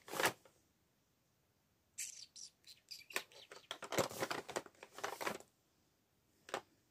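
Small plastic makeup cases clicking and clattering as lipsticks are picked through and handled. A short click comes first, then about three and a half seconds of quick clicks and rattles, with one more click near the end.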